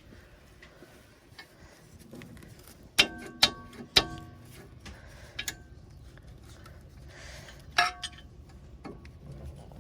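Metal parts and tools clinking during brake work: three sharp ringing clanks in quick succession about three seconds in, another a few seconds later, with quieter handling noises between.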